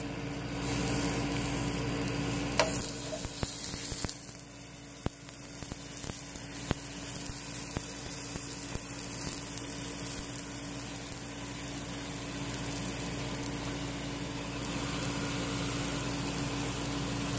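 Ice sizzling as it melts into steam on a smoking-hot rusty metal plate, with a sharp tick about two and a half seconds in and scattered small pops after it. A steady hum runs underneath.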